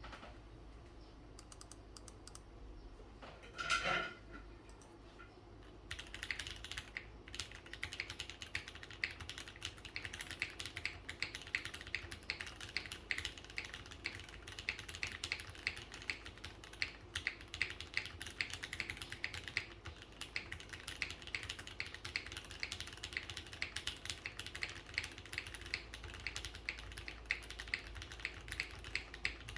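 Typing on a Geon F1-8X gasket-mount mechanical keyboard with lubed and filmed Black Cherry Pie linear switches, a 1 mm aluminium plate, no foam and GMK keycaps: fast, steady key clicks that start about six seconds in. A brief louder noise comes about four seconds in, before the typing begins.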